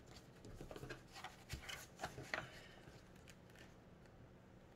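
Faint rustling and light ticks of paper sheets being handled and shuffled through by hand, mostly in the first half.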